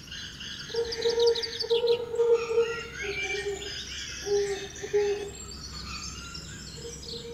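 Forest birdsong: many birds chirping and singing over one another, with a lower, steadier call held for about a second, repeated several times.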